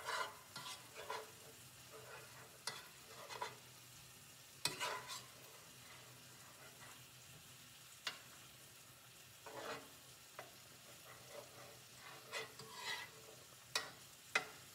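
Butter and minced garlic sizzling in a nonstick frying pan while being stirred, with scattered scrapes and taps of the utensil against the pan.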